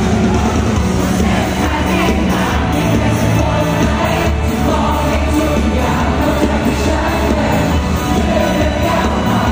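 Live pop music played loud through a concert sound system, with a male singer's voice over the band and crowd noise.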